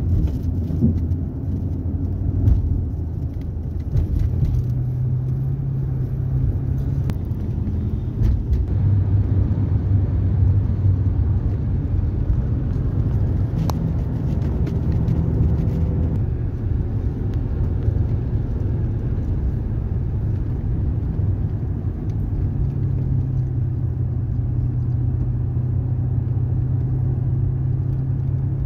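Inside a moving car's cabin: steady engine hum and tyre rumble from highway driving. The engine's hum steps up and down in pitch a few times as the speed changes.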